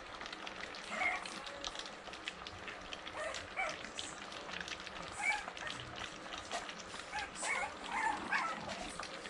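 Five French bulldog puppies eating mushy puppy food from a steel feeding bowl while being weaned off their mother's milk: a steady run of small wet lapping and smacking clicks, with short high squeaks and grunts now and then.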